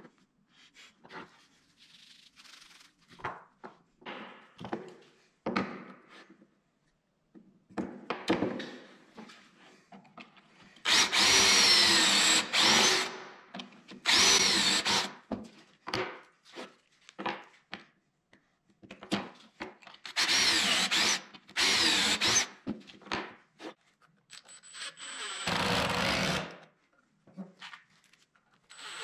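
Cordless drill boring pocket holes into a wooden board through a pocket-hole jig, in several loud bursts of a second or two, its motor speed rising and falling within each burst. Before the drilling there are lighter knocks and clicks of wood pieces and a clamp being handled.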